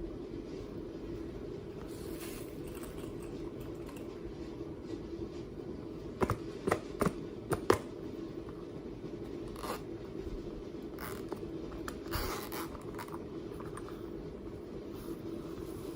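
Slime being handled: scraping and crunching noises, with a quick cluster of sharp pops and clicks about six to eight seconds in, over a steady low hum.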